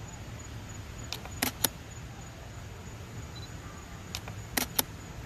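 A handful of sharp clicks or taps, three in quick succession about a second in and three more near the end. They sit over a steady low outdoor hum with faint, regular insect chirping.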